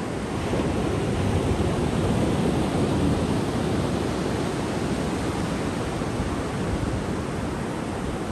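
Ocean surf breaking and washing up a sandy beach: a steady rushing noise that swells about half a second in and eases off slightly after about four seconds.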